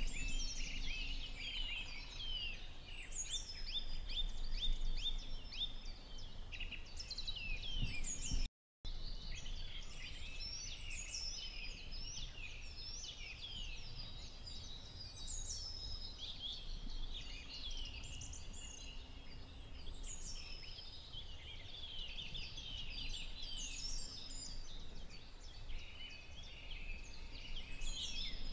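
Dawn chorus of many songbirds singing at once: dense, overlapping high chirps and falling whistled phrases that go on without a break, except for a brief total dropout a little under nine seconds in.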